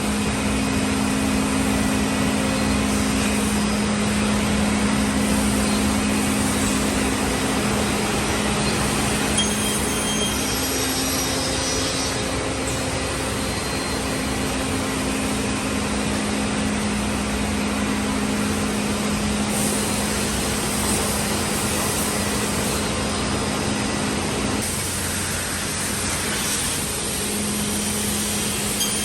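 Tectra 328F CNC panel saw running, a steady machine hum over a dense hiss; the hum drops away for a couple of seconds about 25 seconds in.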